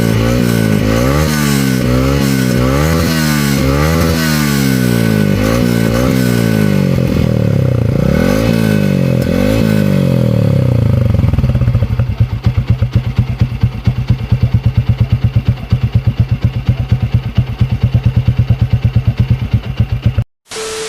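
A Yamaha Sniper 150 motorcycle engine running through an R3 canister exhaust with a 51 mm big elbow. It is revved up and down repeatedly for about eleven seconds, then settles to an even, pulsing idle, with a slight ticking. The sound cuts off abruptly near the end.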